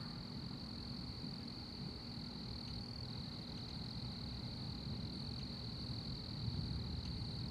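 Steady chorus of night insects, one continuous high-pitched drone, over a low background rumble.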